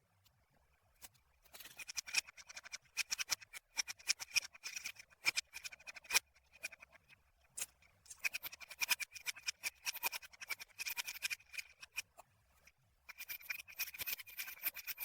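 Kinetic sand being squished and worked by hand, a fine crunchy crackling in three stretches: from about a second and a half in, again about halfway through, and again near the end.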